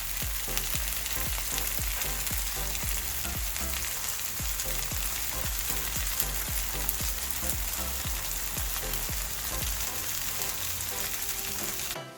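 Spaghetti and its sauce frying in oil in a pan, sizzling steadily, cutting off abruptly at the very end.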